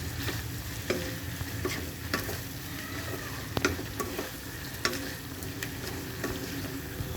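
Chicken liver fry sizzling in oil in a kadai while it is stirred, the stirring utensil knocking and scraping against the pan in irregular strokes, roughly one every half second to a second.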